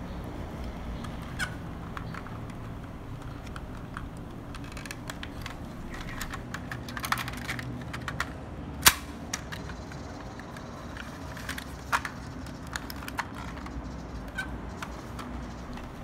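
Hard plastic parts of a 1985 M.A.S.K. Jackhammer toy and its figure clicking and tapping as they are handled and pushed back into vehicle mode. The clicks come at scattered intervals, and the sharpest is about nine seconds in.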